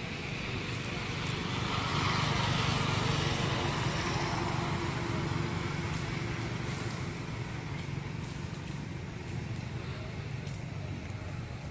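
Low engine rumble of a passing motor vehicle, swelling about two seconds in and slowly fading away.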